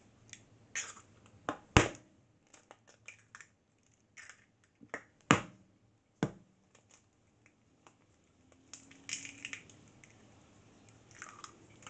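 Raw eggs being cracked one after another on a hard edge and emptied into a bowl of dry cake mix. There are three sharp knocks of shell, with lighter taps and crackling of broken shell between them.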